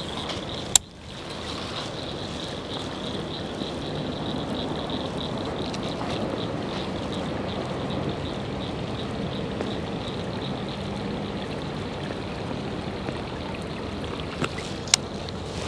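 Abu Garcia Max Pro baitcasting reel being cranked steadily on a slow retrieve of a topwater buzzbait, a click about a second in, then a continuous whirring and rustling with two small clicks near the end.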